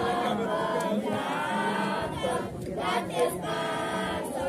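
A crowd of many voices singing together, holding sustained notes.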